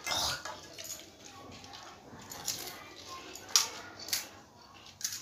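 Steel plates and bowls clattering and crisp panipuri shells being handled and cracked during a meal: a burst of clatter at the start, then scattered sharp clicks, the sharpest about three and a half seconds in.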